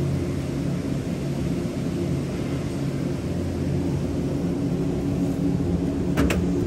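Steady low hum of a supermarket's refrigerated display cases and ventilation, with a couple of short clicks about six seconds in.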